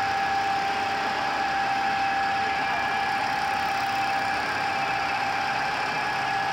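GIDUE MASTER Combat flexo label press running at production speed: a steady machine hum with one constant whine over it.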